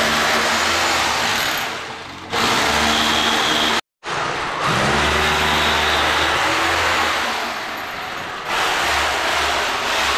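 Hammer drill boring holes into the wall: a loud, steady grinding drone that eases off briefly twice. Its motor spins up again just after a sudden break about four seconds in.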